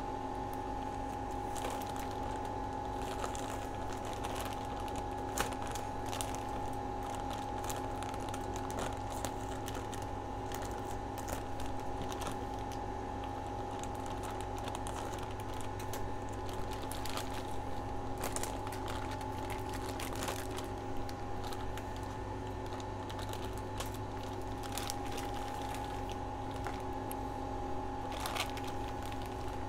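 Plastic mushroom grow bag being handled and opened by gloved hands: scattered crinkles and small clicks. Under it runs a steady hum with a constant tone.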